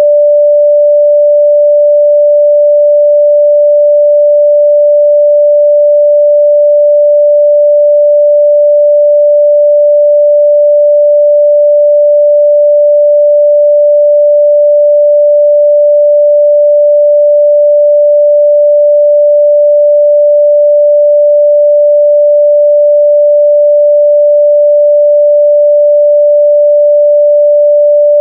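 A pure 588 Hz sine-wave test tone, held steady and loud at one pitch with no change.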